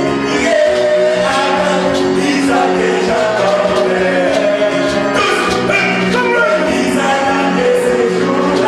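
Male voices singing a gospel song with instrumental accompaniment.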